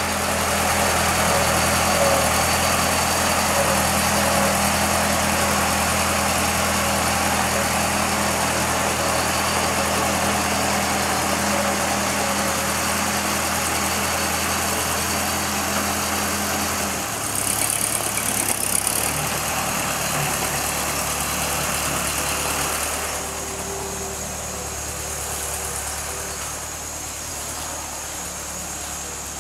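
1939 Ford 9N tractor's four-cylinder flathead engine running steadily as the tractor is driven around. Its note shifts about seventeen seconds in and gets quieter after about twenty-three seconds.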